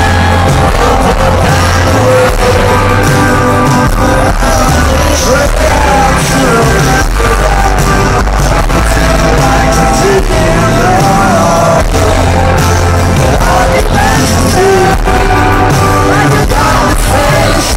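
Live rock band playing at full volume: singing over guitars, bass and drums, with regular drum hits.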